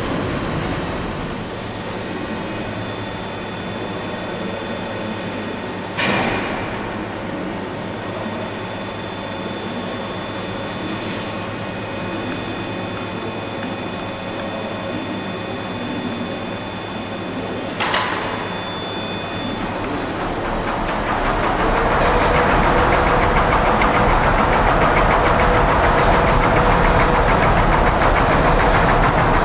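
The plant's rail-mounted transport waggon and its handling gear running steadily, with a faint electric hum and two sharp clanks about 6 and 18 seconds in. From about 21 seconds the running grows louder, with a steady whine, as the waggon travels along its rails to position itself.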